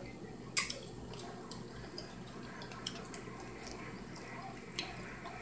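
Quiet eating sounds at a table: a sharp click about half a second in, then a few scattered small clicks and taps from handling crab-leg shells and utensils.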